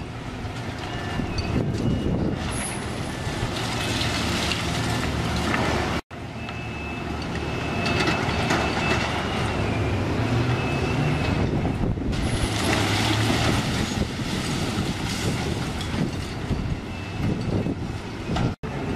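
Building demolition: heavy excavators' diesel engines running under a continuous crunching and clattering of concrete and debris being broken off and falling, with a thin whine at times. The sound cuts out for an instant twice.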